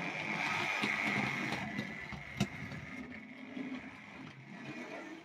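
Vintage model railway tank locomotive running on the track, its small electric motor and wheels whirring and getting gradually quieter as it pulls away into a siding, with a sharp click about two and a half seconds in as it crosses a rail joint or point. The sound cuts off suddenly near the end.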